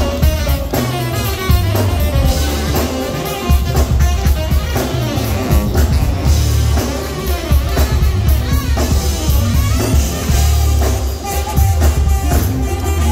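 A live band playing loud, up-tempo music: drum kit, heavy bass and electric guitar, with a saxophone playing a lead line over them.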